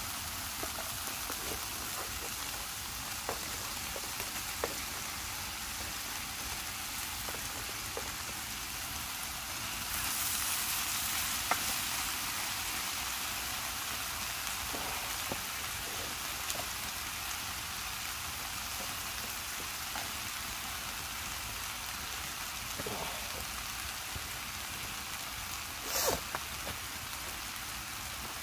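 Food sizzling in a small frying pan over a wood campfire: a steady frying hiss dotted with small crackles. It swells for a couple of seconds about ten seconds in, and there is one louder pop near the end.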